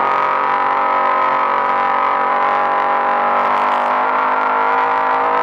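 Off-road race vehicle's engine running at high revs under throttle, its pitch holding steady as the vehicle speeds down the dirt course.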